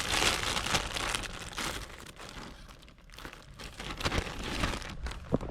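Plastic packaging crinkling and rustling as it is handled, easing off in the middle, with a few light knocks near the end.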